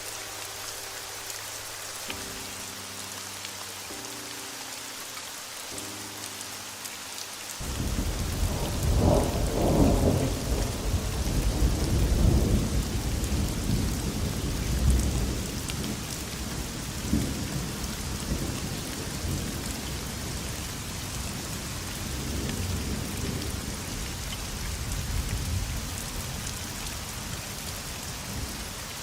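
Steady heavy rain hiss, with soft sustained music chords changing every couple of seconds at the start. About seven seconds in, the music drops out and a long rolling thunder rumble begins, loudest over the next several seconds and then fading in slow swells.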